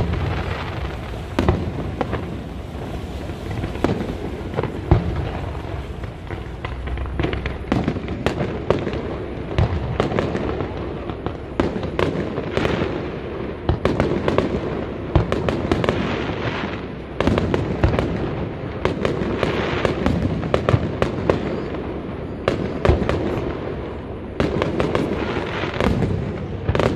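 Fireworks display: aerial shells bursting in many closely packed bangs and crackles over a continuous hiss.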